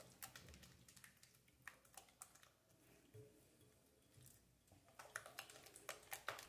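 Faint clicking of a wire whisk against a glass bowl as eggs, flour and milk are beaten into a batter. The clicks are sparse at first and come faster and a little louder in the last second and a half.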